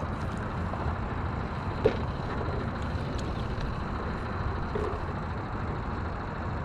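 Small fishing boat moving slowly while trolling: a steady low rumble of motor and water noise. A single sharp click about two seconds in.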